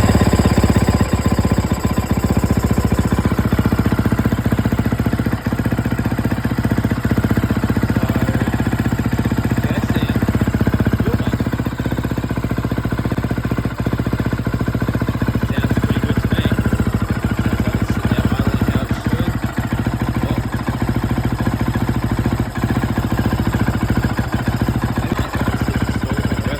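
2011 KTM 350 SX-F dirt bike's single-cylinder four-stroke engine running steadily at idle, just after starting, with a replacement fuel tank and fuel pump fitted.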